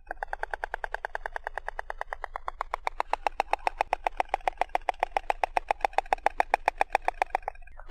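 Stork clattering its bill: a fast, even rattle of about ten clacks a second that grows louder about three seconds in, breaks off briefly near the end, then starts again.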